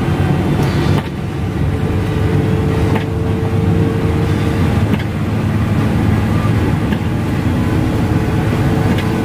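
Cabin noise of an intercity coach driving on a wet road in rain: a steady engine drone and tyre noise with a faint steady whine above it. Short clicks come about a second, three seconds and five seconds in.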